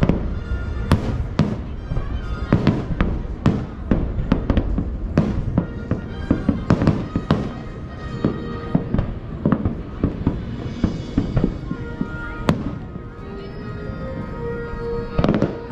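Fireworks shells bursting in quick succession, a dense string of bangs that thins out after about eight seconds, with a single sharp bang a little past twelve seconds and a quick cluster near the end. Music plays underneath.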